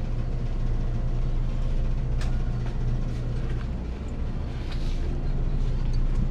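A steady low hum runs throughout, with a few faint clicks about two seconds in and near the five-second mark.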